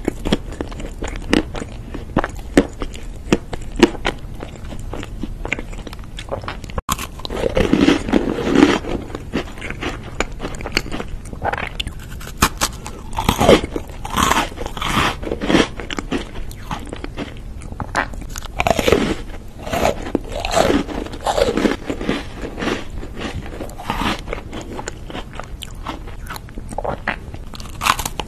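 A person biting and chewing desserts close to the microphone: crisp crunches from red velvet sandwich cookies mixed with softer, moist chewing of cake, in irregular bursts with no talking.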